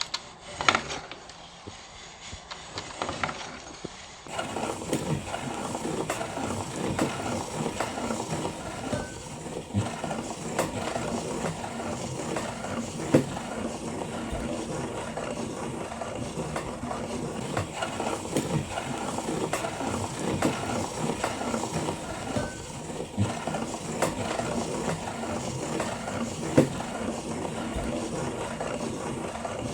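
Meat grinder running and crunching Kinder Surprise chocolate eggs, with irregular cracks and knocks over a steady mechanical noise. The grinding starts about four seconds in, after a few light clicks.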